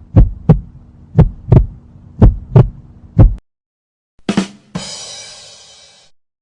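Heartbeat sound effect: low double thumps, about one lub-dub pair a second, over a steady hum, stopping after about three seconds. Near the end a sharp hit is followed by a crash that fades over about a second and a half.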